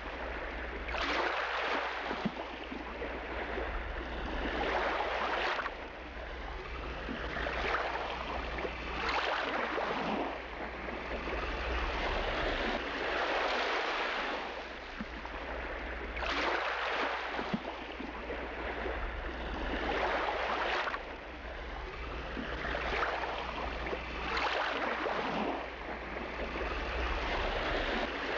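Seawater rushing and sloshing around the camera just below the surface, in uneven swells every one to three seconds, over a steady low rumble.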